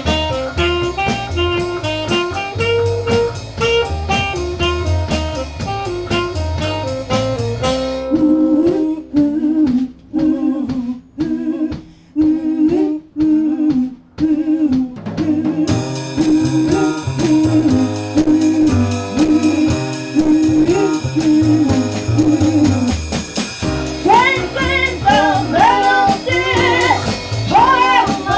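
Live band music with piano and drums. About eight seconds in the band drops to a repeating low line with stop-time breaks. A cymbal then keeps time, and a voice comes in singing near the end.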